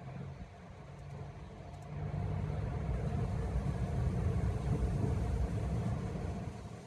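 A low rumble that builds about two seconds in, holds for a few seconds, and fades near the end.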